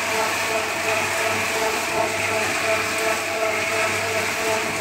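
Small electric drum mixer running steadily, its motor and gear drive humming while groundnut seed tumbles and rattles in the turning drum as it is coated with Vitavax seed-treatment powder.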